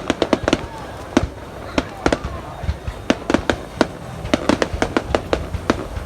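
Fireworks display going off in a rapid, irregular string of sharp bangs, several a second, over a steady low rumble.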